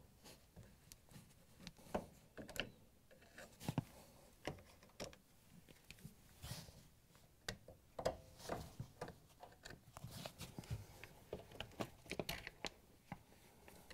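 Phillips screwdriver backing out the screws that hold a refrigerator's base grille, with faint, irregular light clicks and scrapes of the tool, screws and hands on the metal and plastic.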